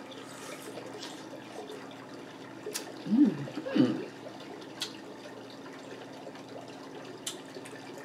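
Close-up eating sounds: a fork clicks sharply against the dishes three times, and a couple of short closed-mouth 'mm' hums of enjoyment come about three to four seconds in, over a steady background hiss and low hum.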